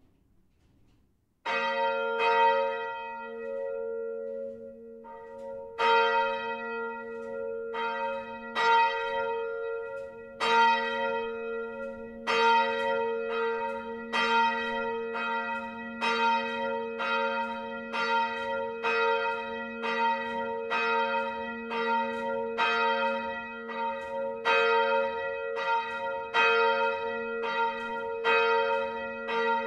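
A single 1948 Petit & Fritsen bronze church bell, swinging on a straight axle and being rung. The first clapper strike comes about a second and a half in, and the strokes then come faster as the swing builds, settling to about one a second. Each stroke rings on into the next.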